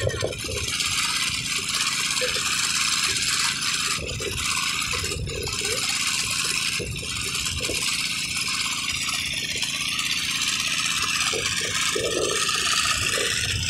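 Small water-well drilling rig running steadily, with the drill pipe rattling and scraping in the muddy borehole.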